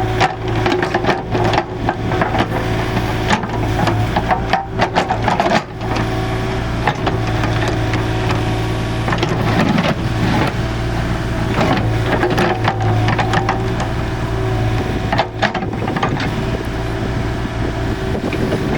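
Kubota KH-024 mini excavator's diesel engine running steadily, with repeated clicks and knocks on top.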